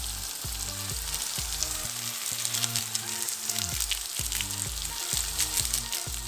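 Vegetable masala sizzling and crackling in hot oil in a kadai, with Maggi taste-maker spice powder just added on top. Soft background music with short stepped notes plays underneath.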